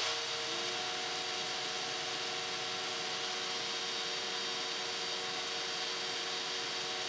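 Bosch GET65-5N random-orbit (DA) sander, clamped upside down and hooked to a shop vac for dust extraction, running steadily while a small wooden block is held to its pad to round over the edges. It makes a steady rushing noise with a whine in it.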